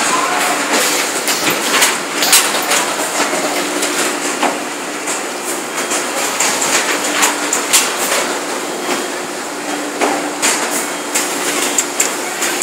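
Automatic pad printing line running: irregular mechanical clacks and knocks from the printing machinery over a steady machine hum.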